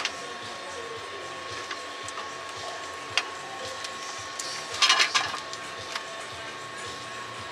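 Cookware clinking on a gas stove: a sharp click about three seconds in and a short clatter of metal about five seconds in, over a steady mechanical hum with a thin high tone.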